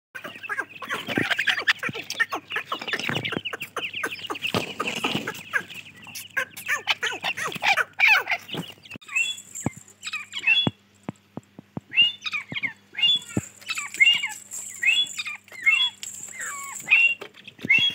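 Grey francolin chicks peeping. For the first half a dense, overlapping chatter of high cheeps is mixed with many small clicks. After that come clear, separate short downward-sliding peeps at about two a second.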